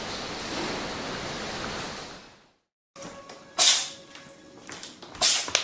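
A hissing noise fades and cuts off. After a short silence come two short, sharp animal sneezes about a second and a half apart.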